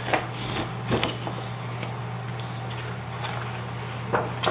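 Sheets of 12x12 scrapbook paper being handled and pulled from a glued paper pad: short, sharp paper rustles, one just after the start, one about a second in and two near the end, over a steady low hum.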